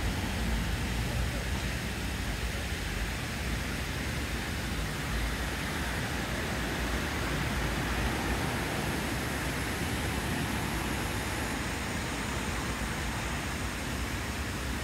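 Steady outdoor background noise: an even low rumble with a hiss over it, and no distinct events.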